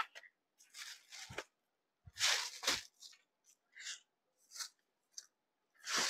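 Rustling of a folded Banarasi fancy saree being handled on a counter, in several short bursts, the loudest about two seconds in.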